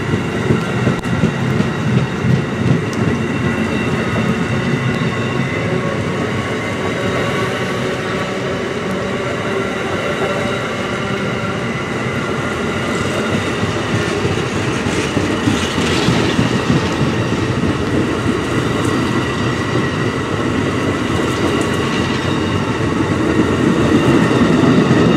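Amtrak passenger train's stainless-steel cars passing at speed: a steady rush of wheels on rail, getting louder near the end as the last car goes by.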